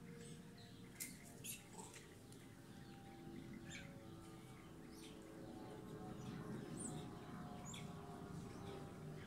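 Faint, scattered crinkles and clicks of a thin plastic water bottle being bitten and handled by a macaque, about seven in all, over a low steady hum.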